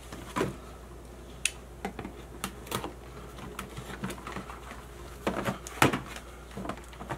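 A cardboard modem box being handled and opened: scattered light clicks and taps from the flaps and packaging, with a quick run of louder knocks about five to six seconds in.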